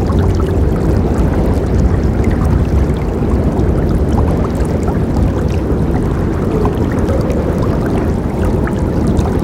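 River water flowing: a steady, full rush of running water, strongest in the low range, with many small splashes and trickles scattered through it.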